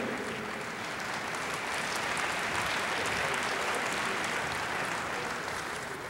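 Audience applauding steadily, the clapping easing off near the end.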